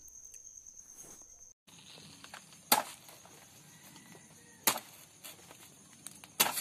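A large knife hacking through the thick stalk of a green banana bunch: three sharp chops, about two seconds apart, in the second half.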